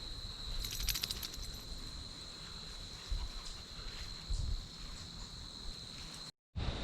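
Insects trilling steadily at one high pitch, with a short run of rapid clicks about a second in and a few soft low thumps. The sound cuts out briefly near the end.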